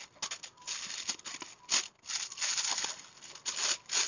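Butter paper crinkling and rustling in irregular bursts as hands fold it and press it down around a parcel of marinated meat.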